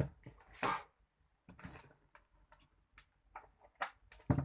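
Scattered clicks and knocks of hands handling a modem and its cables as a DC power plug from a 5V-to-12V USB step-up cable is fitted, with heavier knocks about a second in and near the end.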